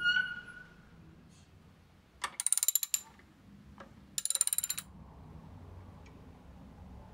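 Socket ratchet wrench clicking in two quick runs, about two and four seconds in, as it works a luggage-support bracket bolt on a motorcycle frame. A short metallic ring, the loudest sound, comes right at the start.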